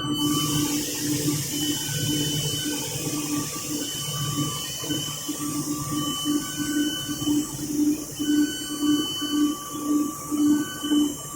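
Machinery of a rubber extrusion and microwave vulcanization line running: a steady hiss over a low hum that pulses about twice a second, the pulsing growing stronger in the second half.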